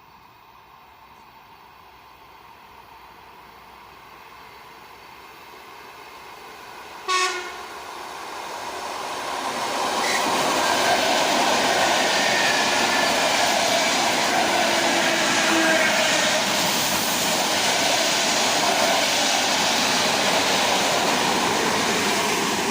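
ET2M electric multiple unit approaching and growing steadily louder, with one short horn blast about seven seconds in. From about ten seconds in, loud wheel-and-rail noise as the train runs in.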